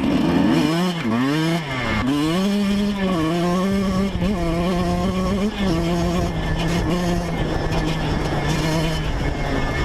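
Yamaha YZ125 single-cylinder two-stroke engine under way on a test ride: the revs drop and climb back twice in the first two seconds, then the engine holds a steady high rev.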